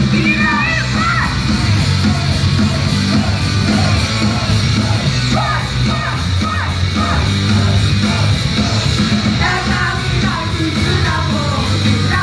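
Loud live rock-style idol song: a heavy band backing with singing and shouted voices over it.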